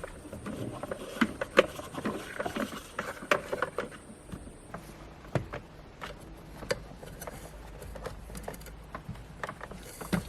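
Irregular clicks, taps and knocks from hands handling parts and tools, with a little rustling between them.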